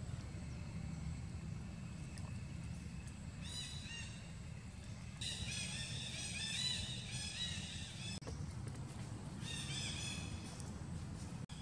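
Bursts of high-pitched, rapidly repeated chirping animal calls, coming and going several times over a steady low rumble.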